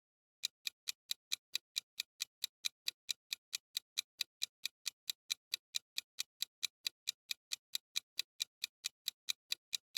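Countdown timer sound effect, a clock-like ticking of about four even ticks a second that starts about half a second in.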